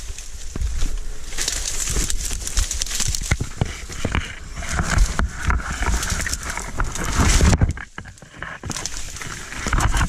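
Dry reed stems crackling, snapping and scraping close against the microphone as someone pushes through a dense reed bed on foot, with a short lull about eight seconds in.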